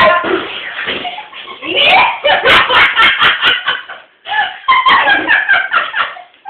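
People laughing in two bouts of quick, repeated bursts, with a short break in between.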